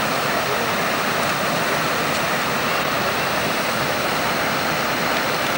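Water rushing and splashing down a stepped stone cascade into a pool, a steady, even rush.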